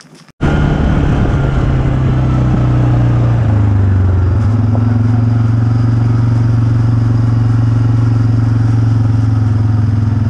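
Quad bike engine running steadily at low speed, close to the microphone, its pitch stepping down slightly about four seconds in.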